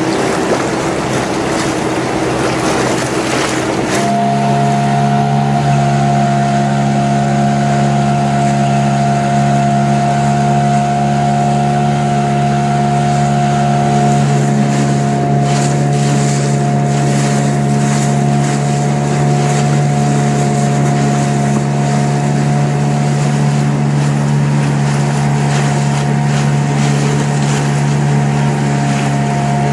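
Motorboat engine running steadily under way, changing to a higher, steady drone about four seconds in as it is opened up. Wind noise on the microphone runs along with it.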